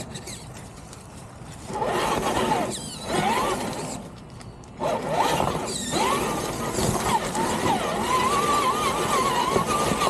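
Traxxas TRX-4 Defender RC crawler's brushed electric motor and gear train whining, the pitch wandering up and down with the throttle. It starts about two seconds in, cuts out briefly around four seconds, then runs on.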